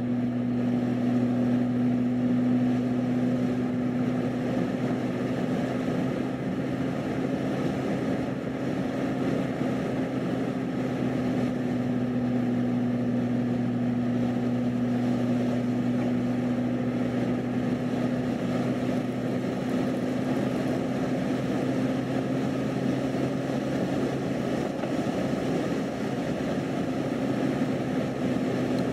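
Steady in-cabin drone of a car cruising on a paved highway: engine and tyre noise with a constant low hum.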